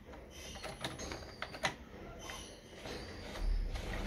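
Stitch-pattern selector knobs and levers of a Brother Pacesetter sewing machine being turned and set by hand: a series of irregular mechanical clicks, with a short low rumble near the end.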